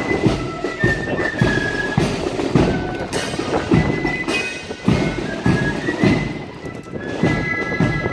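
Military marching band music: bagpipes holding long high notes over a steady bass-drum beat of a little under two beats a second.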